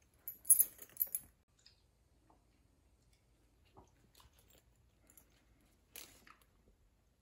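Small handling clicks and taps as a chimpanzee takes and drinks from an insulated metal water bottle: a quick cluster of sharp clicks and rustles in the first second, then a few soft scattered clicks.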